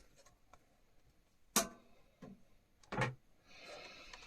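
Lid of a Humax Freesat recorder box being lifted off: two short knocks, about one and a half and three seconds in, and a faint scrape near the end.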